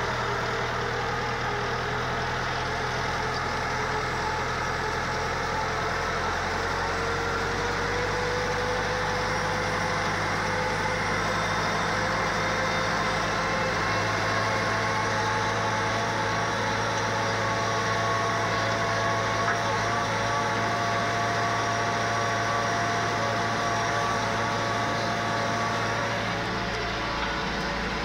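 McCormick orchard tractor's engine running steadily under load, pulling a rear-mounted hilling implement that earths up soil along the tree rows. Its pitch rises slightly about eight seconds in, then holds.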